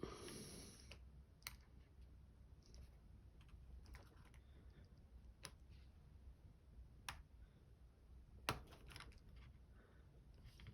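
Faint, sparse small clicks from a gut wrench working at the C-clip on a padlock's core, about half a dozen spread over the stretch, with a soft rustle at the start.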